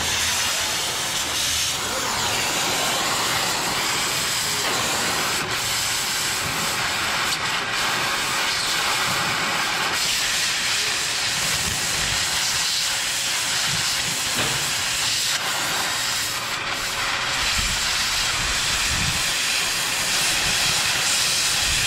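Oxy-fuel cutting torch hissing steadily as it burns through steel plate.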